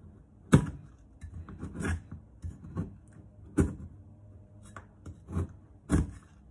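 Kitchen knife chopping a hard block of palm sugar (gula merah) on a plastic cutting board: about half a dozen sharp, irregular knocks as the blade breaks through the sugar and strikes the board, with lighter ticks and scrapes between.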